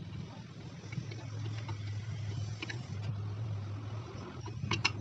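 Light metallic clicks as bolts and a metal casing cover on a Yamaha Mio Z scooter are handled and set in place: a click at the start, another about halfway through and a quick double click near the end, over a steady low hum.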